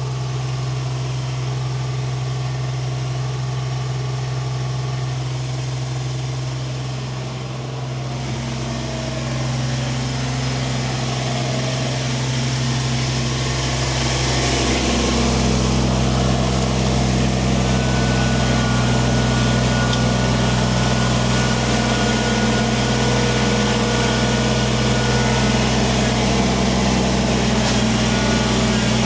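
Kubota tractor's diesel engine running steadily, picking up and getting louder about halfway through as the tractor drags stone while grading.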